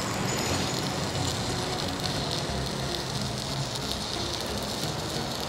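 Stick welding arc from a JACPRO ARC 200F inverter welder burning a 3.2 mm electrode: a steady crackling sizzle that runs on without a break.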